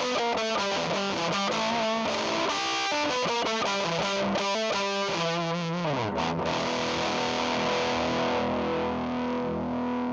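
Electric guitar (Epiphone SG) played through a Z.Vex Fuzz Factory fuzz pedal into a clean amp simulator, giving a distorted tone. Quick picked notes slide down in pitch about five seconds in, then a held chord rings on.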